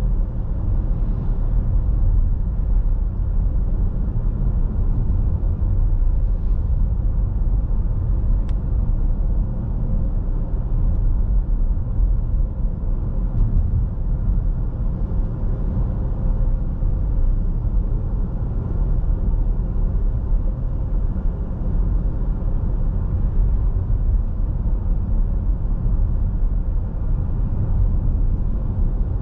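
Steady low rumble of a car driving at an even speed, its engine and tyres on the road heard from inside the cabin.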